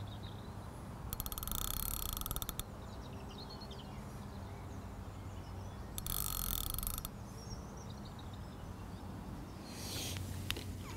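Fishing reel being wound in two short bursts, about a second in and again about six seconds in, each a fast even ticking from the reel as line is retrieved.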